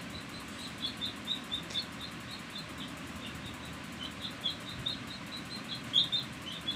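Domestic chicken chick peeping, a steady run of short high peeps several times a second, loudest about six seconds in.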